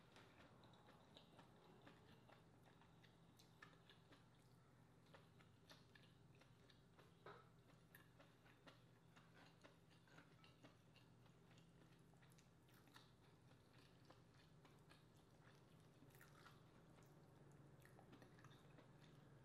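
Faint chewing of lobster meat, with scattered small clicks and wet squishes as fingers pick the meat from the shell, over a steady low hum.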